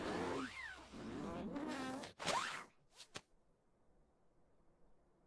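Wordless cartoon vocal sounds: a warbling squeal that rises and falls, then a short rising whoop, followed by two quick clicks.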